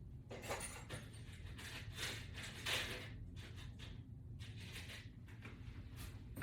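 Faint rustling and light clicks of small metal hardware being handled: screws, washers and butterfly toggle bolts being fitted together, over a steady low hum.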